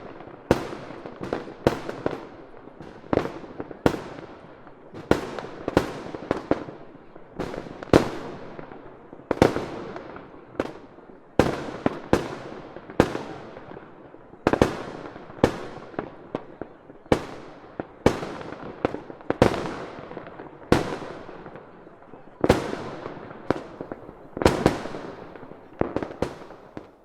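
Fireworks going off in a rapid barrage, sharp bangs about one to two a second, each with a fading echo, stopping right at the end.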